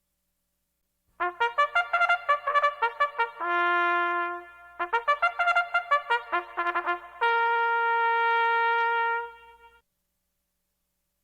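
A brass fanfare: two quick runs of notes, each ending on a held note. The second held note is higher and longer and cuts off well before the end.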